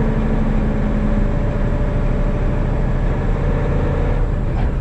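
Truck engine running steadily while driving, with road noise, heard from inside the cab as a continuous low drone.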